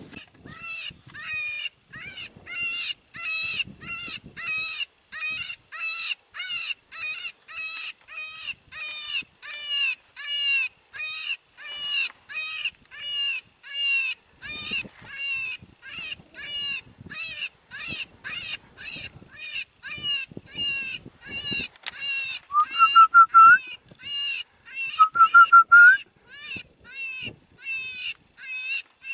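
Predator call playing a prey distress cry, repeated evenly about twice a second, to lure a coyote. About two-thirds of the way through, two louder rising squeals sound a couple of seconds apart.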